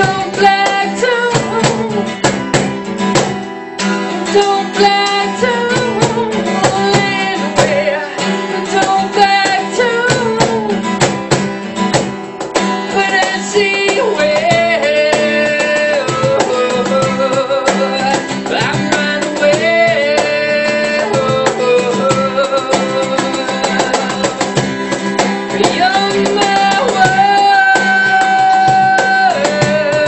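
Acoustic guitar strummed in a steady rhythm, with a voice singing a held, wavering melody and hand percussion beating along.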